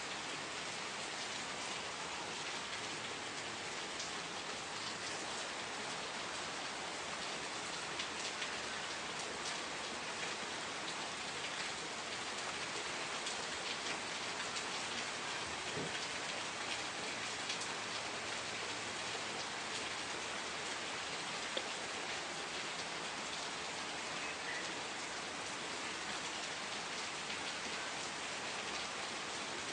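Steady rain falling, an even hiss with many small individual drop ticks.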